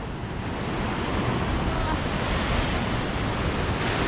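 Ocean surf breaking and washing over a rocky lava shoreline, a steady rush of white water with wind buffeting the microphone.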